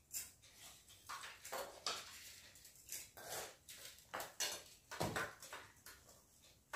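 Faint, irregular eating sounds of rice and curry eaten by hand from steel plates: fingers scraping and mixing rice on the plates, with chewing and mouth noises. One louder knock about five seconds in.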